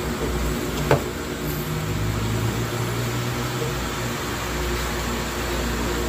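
Small cordless handheld vacuum cleaner's motor running with a steady whirring hum, with one short click about a second in.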